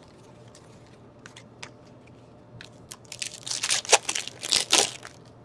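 Foil wrapper of a hockey trading-card pack being torn open and crinkled, a run of crackling from a little before three seconds in to about five. Before that, faint ticks of cards being handled.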